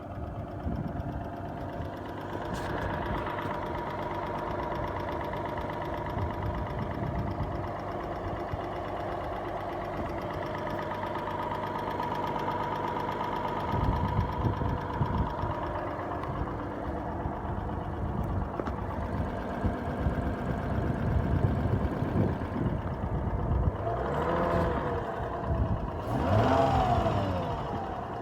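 2006 Lexus IS350's 3.5-litre V6 engine running steadily, with a noise the owner wonders may be lifter noise. Near the end the engine speed rises and falls several times.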